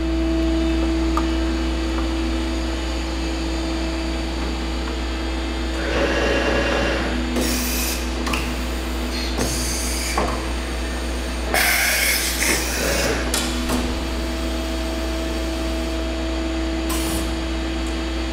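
Okuma MAB-80H five-axis horizontal machining center powered up: a steady low hum with a constant tone over it, broken by several short bursts of hissing noise through the middle and once more near the end.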